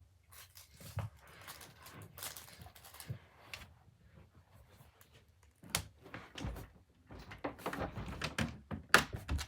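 Rummaging through belongings: irregular knocks, clatter and rustling as things are moved about, busiest in the second half, with one sharp knock near the end.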